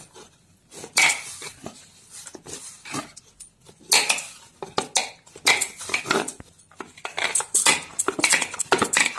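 Hands kneading soft bread dough in a plastic bowl: irregular pressing and slapping sounds, with the bangles on the wrist clinking against each other and the bowl.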